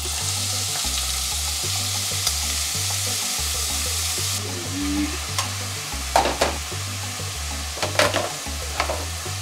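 Diced pork, bamboo shoots and shiitake sizzling steadily as they are stir-fried in a non-stick frying pan, with a few sharp scrapes of the nylon turner against the pan in the second half. Background music with a low, repeating bassline runs underneath.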